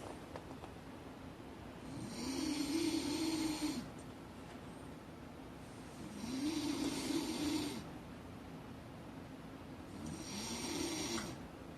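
Snoring: three long snores about four seconds apart, each a drone that rises and then falls in pitch.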